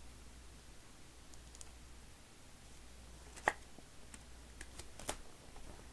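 Light clicks and taps of trading cards being handled and set down on a table while they are sorted. The two loudest clicks come about three and a half and five seconds in, with a few fainter ticks between.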